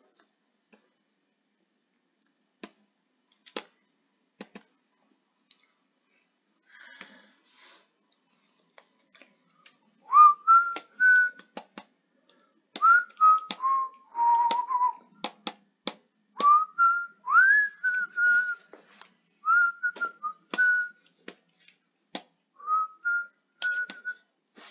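Scattered clicks, then a person whistling a tune from about ten seconds in: short phrases that slide up and hold, with more clicks between them.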